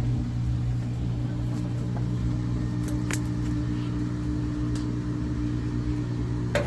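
A steady low hum with a few faint clicks, the clearest about three seconds in.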